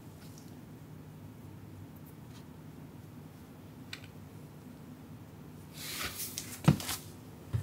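Quiet room tone with a low steady hum and a faint click about four seconds in. Near the end comes a brushing scuff with a single sharp thump.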